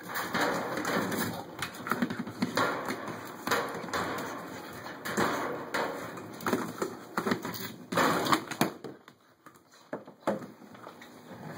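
Red Kong Wobbler treat toy being pushed and knocked about by a puppy, clattering irregularly on a tile floor and bumping against the stove and cabinets, with a short lull about nine seconds in.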